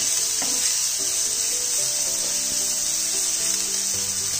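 Chopped onion and garlic sizzling steadily in hot oil in a non-stick frying pan, stirred with a spatula, over soft background music with held notes.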